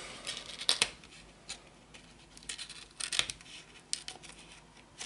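Fingers prising open the cardboard box of a trading-card mini tin: a scatter of short, crisp clicks and rustles of card.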